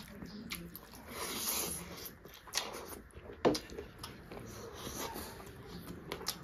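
Close-up eating sounds: chewing, lip smacks and wet mouth noises of rice with curry eaten by hand, with a sharp smack about three and a half seconds in, the loudest sound.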